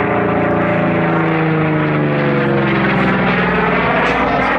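Vought F4U Corsair's 18-cylinder radial engine and propeller running loud as it flies past, the pitch falling steadily as it goes by.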